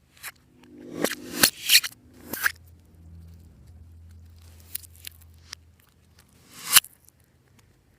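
Slime being worked by hand, with sticky crackles and crunchy pops in several short clusters; the loudest comes near the end.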